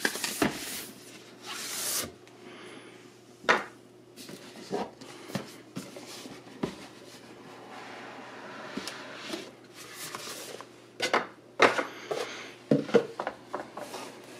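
Cardboard packaging being handled. A box slides out of its sleeve with a rubbing hiss over the first two seconds. Then come scattered knocks and taps as the box is set down and its lid is worked off.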